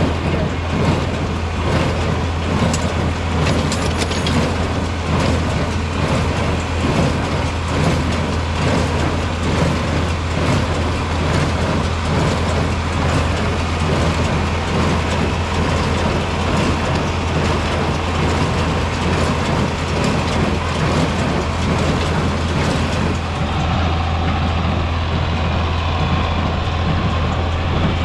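John Deere 4020 tractor engine running steadily under load, with the mechanical clatter of the hay baler it is pulling.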